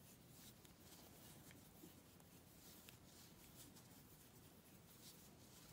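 Near silence with faint, scattered scratching and ticking of a crochet hook working yarn.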